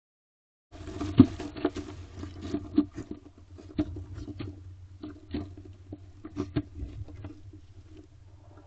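Barn owl feeding on prey in a wooden nest box: irregular scrapes, clicks and knocks as it moves and pulls at the prey, the loudest about a second in, over a steady low hum.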